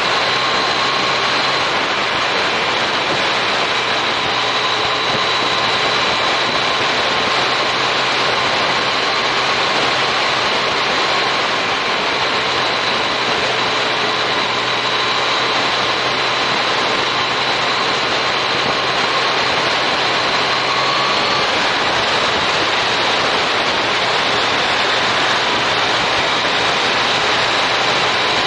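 Steady rush of wind and road noise on a motorcycle-mounted action camera's microphone while riding at a constant pace, with the Yamaha MT-09 Tracer's inline-three engine running underneath. The low engine hum drops away and the faint steady tones shift slightly about three quarters of the way through.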